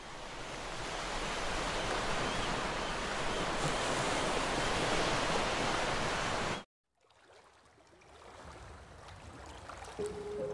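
Ocean surf washing and breaking on rocks, a steady rush of water noise that fades in and cuts off abruptly about six and a half seconds in. After a brief gap a quieter hiss builds up, and a few music notes begin right at the end.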